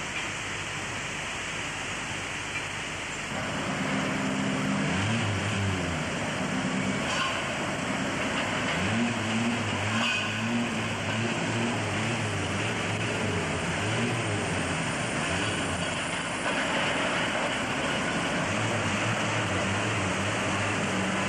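Motor vehicle engine running from about three seconds in, its pitch stepping up and down as it speeds and slows, over a steady rushing noise.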